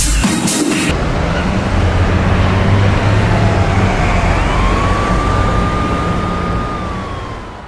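City street traffic with an emergency-vehicle siren over a low engine rumble. The siren's tone glides down, sweeps back up about halfway through, holds steady, then fades out near the end.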